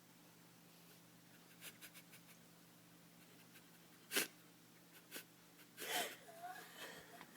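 A sleeping pet cat snoring: short, rough snorting breaths at uneven intervals, the sharpest about four seconds in and a longer, rattly one about six seconds in.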